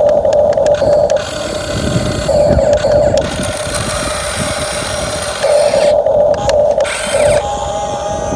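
Small electric motors and gearboxes of a radio-controlled Huina 1550 excavator whirring in short stop-start bursts of about a second each, as its functions are worked in turn.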